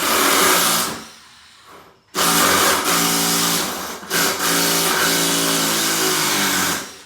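A 12-volt cordless impact driver hammering as it drives a large screw into timber. First comes a burst of about a second, then a longer run of about four and a half seconds with a brief break partway through.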